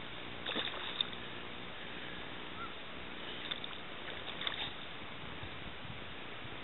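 Quiet outdoor background: a steady faint hiss, with a few soft short noises about half a second in and again around four seconds in.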